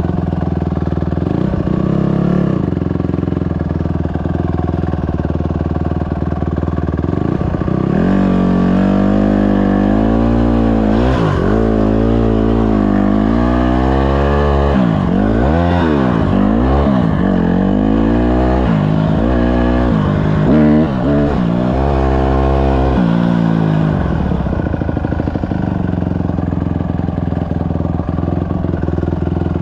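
Honda CRF150R dirt bike's single-cylinder four-stroke engine running. It holds a steady note at first, then revs up and down repeatedly through the middle stretch as the bike is ridden, and settles back to a steady note near the end.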